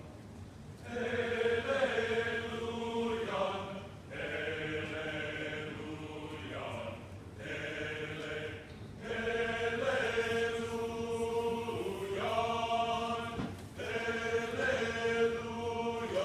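Choir singing held chords in phrases of a few seconds, with short breaks between them.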